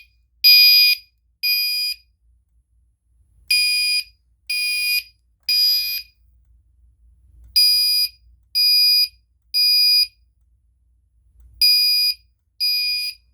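Gentex Commander 3 (GEC3-12WR) fire alarm horn sounding the temporal code 3 evacuation pattern after a manual pull station has been pulled: very loud, high-pitched horn blasts about half a second long, in groups of three a second apart, with a pause of about a second and a half between groups.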